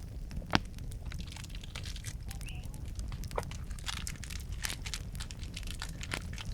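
Campfire crackling, with scattered small snaps and one sharp pop about half a second in.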